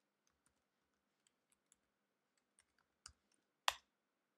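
Computer keyboard typing: faint, separate keystrokes. About three seconds in come two louder clicks, the second one the loudest.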